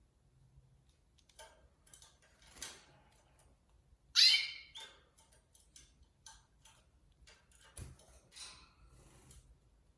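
Canaries bathing: irregular small splashes and wing flutters in the water, with one sharp, loud chirp about four seconds in.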